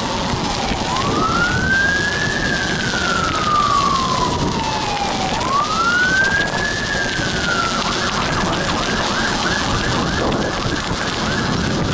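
Emergency vehicle siren wailing, rising and slowly falling twice, then switching about eight seconds in to a fast yelp of about three warbles a second. Underneath is a steady hiss of tyre noise, plausibly the Schwalbe Marathon Winter studded bicycle tyres rolling on pavement.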